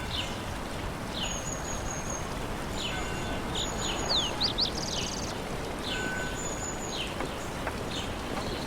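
Quiet village ambience: several birds chirping and calling over a steady low background noise. A quick run of whistled glides and a fast trill comes about four seconds in.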